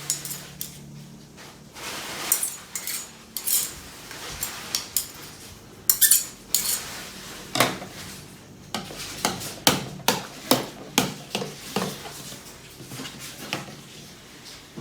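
Toy dishes and kitchen utensils being picked up and set down during pretend cooking: many irregular clinks and clatters.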